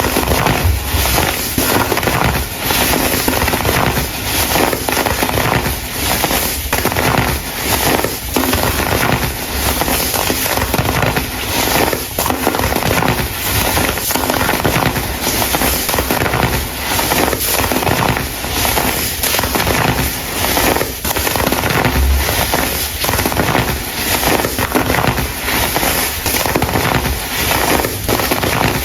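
Dried baking soda blocks being crumbled and crushed, a dense, continuous crunchy crackle that swells and eases about once a second.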